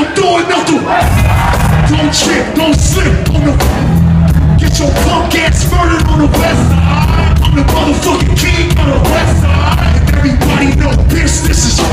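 Loud live hip hop music: a heavy bass beat with vocals over it.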